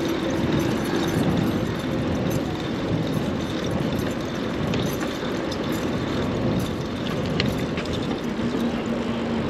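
Rush-hour city street traffic heard from a moving bicycle: a steady rumble of car engines and tyres, with a faint held engine hum at the start and another near the end.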